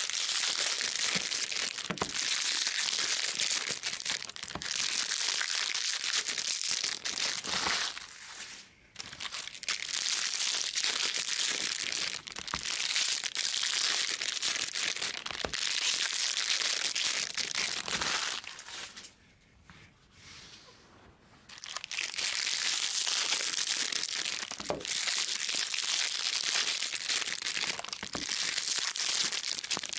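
Foil wrappers of 2020 Bowman baseball card packs being torn open and crinkled, pack after pack, almost without a break; the rustling pauses briefly about nine seconds in and again for a couple of seconds around twenty seconds in.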